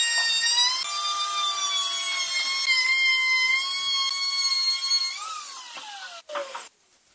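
DongCheng electric plunge router cutting a profile into the edge of a round pine board, its high motor whine dipping and recovering under the load of the cut. About five seconds in it is switched off and spins down in a falling whine, with two short knocks near the end.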